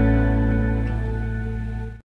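Soft background music: held notes slowly fading, cut off suddenly at the end.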